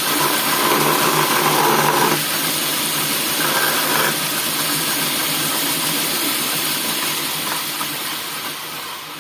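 Homemade bandsaw running steadily, its motor hum under the blade's noise. It gets louder twice in the first half, then dies away near the end.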